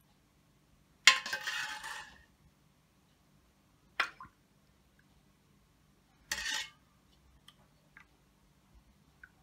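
Metal ladle filling glass ramekins with liquid crème caramel custard: three short bursts of clinking and pouring splash, about a second in, at four seconds and just after six seconds, the first the longest.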